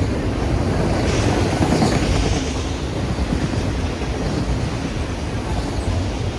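Freight train rolling past: a steady rumble of wheels on the rails, with a brief swell of higher-pitched wheel noise about a second in.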